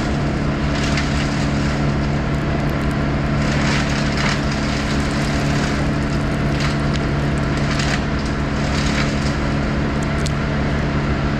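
Crane engine running steadily under load as the hoist cable is taken up, with scattered sharp cracks and crackles of wood and branches.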